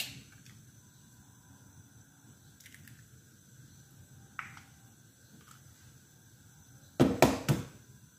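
Eggs being cracked into a frying pan of oil: a sharp click at the start, a few faint taps and a short scrape in the middle, then an egg knocked three times against a hard edge to crack it about seven seconds in, the loudest sound. No sizzling from the oil.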